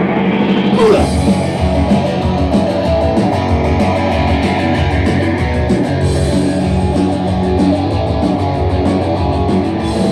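Synth-punk band playing an instrumental passage: electric guitar over synths and a programmed beat with a fast, even hi-hat tick. About a second in a pitch slides downward.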